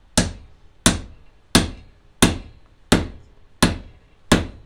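Hammer blows on a steel circle wedge in the top of a sledgehammer head, setting the wedge into the new wooden handle: seven sharp metal-on-metal strikes about 0.7 s apart, each with a short ring.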